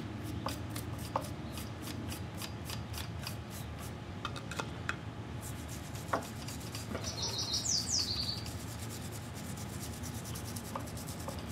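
A small brush scrubbing kerosene-soaked grime off the speedometer gear housing on a motorcycle's front wheel hub, in quick repeated strokes. There is a short high chirp a little past the middle.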